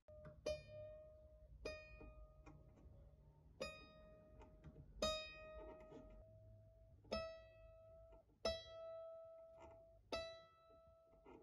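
A restored mandolin with one string plucked seven times on the same high note, each note ringing out for a second or so before the next.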